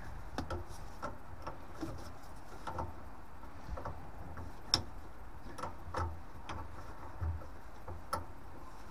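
Irregular light metallic clicks and taps of a spanner working a nut tight on a boiler's brass diverter valve, with one sharper click about halfway through and a few soft knocks.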